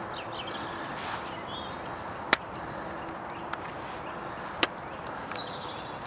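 Sharp plastic clicks as a camouflaged trail camera's case is handled and unlatched: two loud clicks and a fainter one between them. A songbird sings three short songs behind them, each a run of quick high notes stepping down in pitch.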